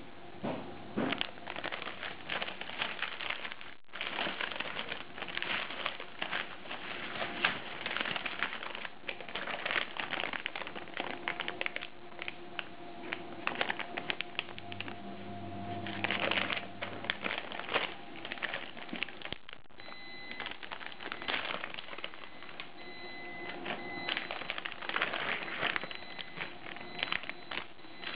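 Bubble wrap and a plastic parts bag being handled and unwrapped: a dense, irregular run of crinkling, rustling and small crackles.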